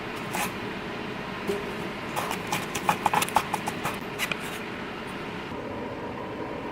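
Knife chopping fresh onions on a cutting board: a quick run of sharp knocks, about five a second, for around two seconds in the middle.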